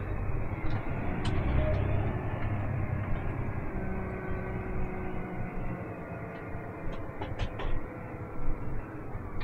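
Vehicle engine running steadily, its pitch shifting slightly about four seconds in, with a few faint clicks over it.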